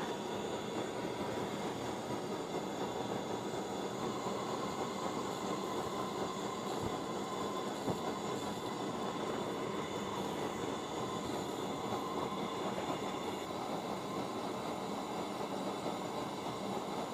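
Steady rushing hiss of Coleman pressurized white-gas single-burner stoves: the 500 burning, and the 502 just lit and still preheating its generator so the fuel turns to vapour.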